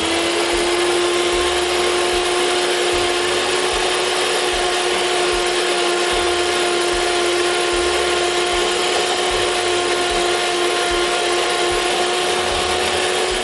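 Electric hand mixer running steadily, its twin beaters churning stiff toffee in a stainless steel bowl. The motor gives a loud, even whine with a constant pitch.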